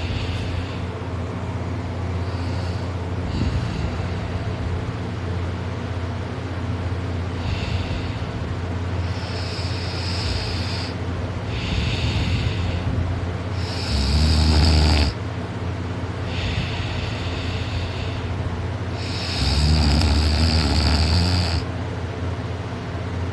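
A person snoring in sleep, kinda loud: a breathy snore every two to three seconds, with two longer, louder snores carrying a low rumble, one around the middle and one near the end. A steady low hum runs underneath.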